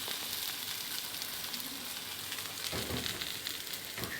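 Garlic, onion, ginger and curry leaves sizzling steadily in hot oil in a frying pan, with a couple of soft knocks from a utensil against the pan.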